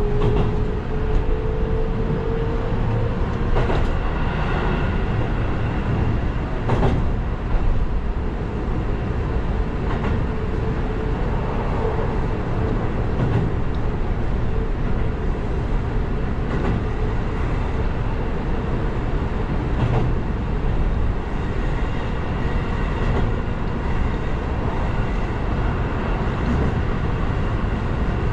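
Electric commuter train running on the line, heard from inside the driver's cab: a steady rumble of wheels on rail, with a motor whine rising slowly in pitch over the first few seconds as it gathers speed, and a faint click about every three seconds as the wheels cross rail joints.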